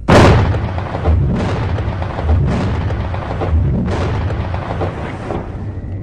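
Explosion sound effects on an animated cartoon's soundtrack: a loud blast right at the start, then about four more booms over the next four seconds, each trailing into a low rumble that fades out.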